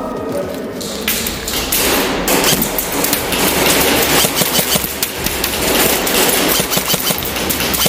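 Airsoft guns firing rapidly, a dense, irregular clatter of shots and BB impacts.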